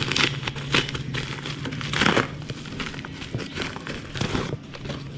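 Packaging crinkling and rustling in irregular bursts as a new motorcycle exhaust pipe is unboxed, over a steady low hum.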